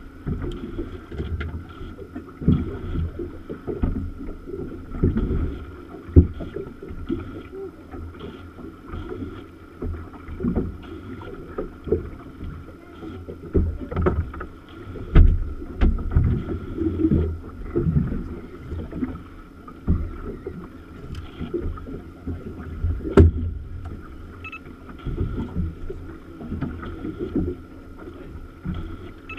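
Small boat drifting at sea: irregular low thumps and knocks of the hull rocking and water slapping against it, over a faint steady high tone, with one sharp click about three quarters of the way through.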